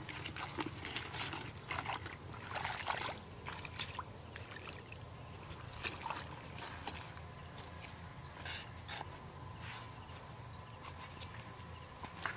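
Footsteps squelching and splashing through wet mud and shallow water, a busy run of steps in the first three seconds, then sparser.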